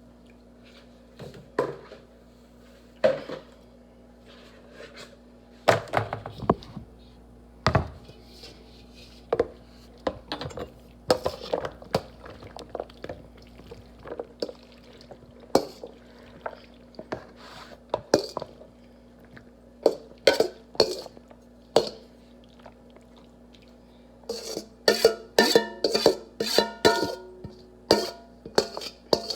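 Kitchen utensil clinking, knocking and scraping against a bowl and dishes as the pasta salad is transferred into a bowl: scattered knocks at first, then a quick run of ringing clinks near the end.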